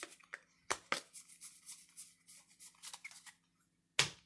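Trading cards being handled and flipped through by hand: soft rustling ticks with a few sharper card flicks, the loudest near the end.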